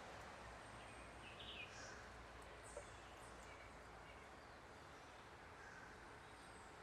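Quiet outdoor ambient hiss with a few faint, brief bird chirps, about one and a half seconds in and again near three seconds.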